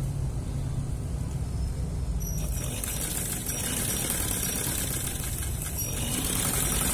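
Sewing machine running steadily, stitching a collar facing onto a dress bodice; a higher hiss joins about two seconds in.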